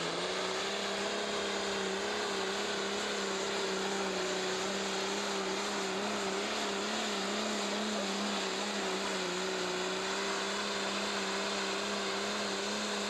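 Turbocharged diesel engine of a pro stock pulling tractor running flat out under full load as it drags a weight-transfer sled; the pitch holds steady with only a slight waver.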